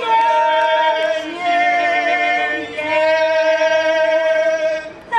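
A group of voices singing a folk song together, holding long notes and moving to a new note about every second.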